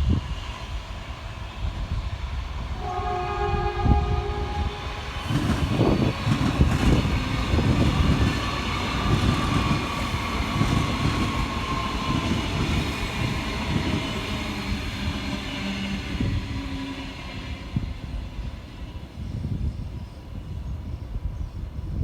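A train sounds its horn once, a short blast about three seconds in, then passes with a steady rumble of wheels on track that fades near the end.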